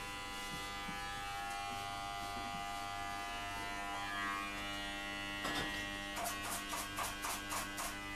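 Corded electric hair clippers running with a steady motor buzz. From about five and a half seconds in, a run of quick clicks and clatters comes from the metal clipper case being rummaged through.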